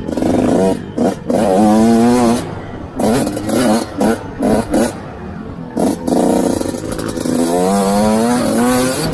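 Small dirt bike engine revving hard through the gears on a motocross track. Its pitch climbs in repeated runs, with short throttle-offs between them.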